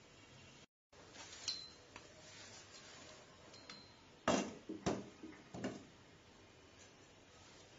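Kitchen handling sounds of a metal tin of chicken powder and a spoon: a few light clinks with a short metallic ring, then three louder knocks about half a second apart near the middle.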